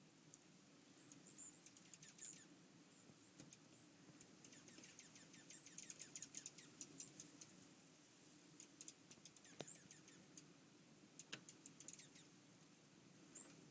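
Small birds chirping and twittering faintly in quick runs of short, high notes, with two sharp clicks near the end.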